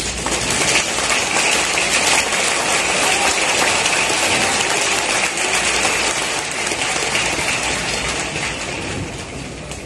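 Large stadium crowd applauding, a dense steady clapping that swells just after it starts and eases off near the end.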